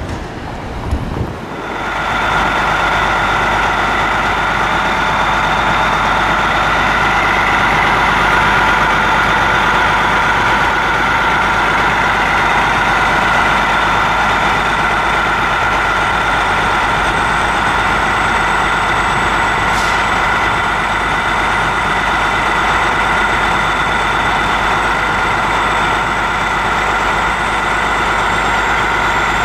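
Prevost motor coach's rear-mounted diesel engine idling at close range: a steady low rumble with a constant high whine over it, coming in about a second and a half in.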